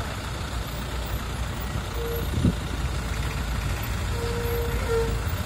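Road traffic in a slow queue: a steady low engine rumble, with a single short knock about halfway through. A brief steady tone sounds about two seconds in and again near the end.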